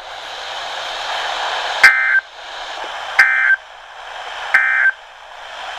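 Weather radio receiver hiss, slowly growing louder, broken by three short, buzzy data bursts about a second and a third apart: the SAME end-of-message code that closes an Emergency Alert System warning broadcast.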